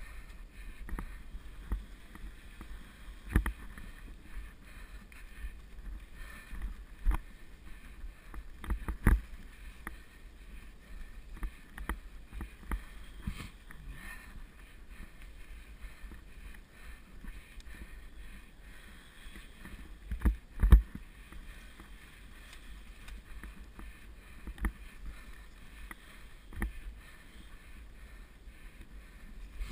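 Mountain bike ridden along a leaf-covered forest singletrack, heard through a GoPro: a steady low rumble with irregular sharp knocks as the bike jolts over bumps, the loudest pair about two-thirds of the way through.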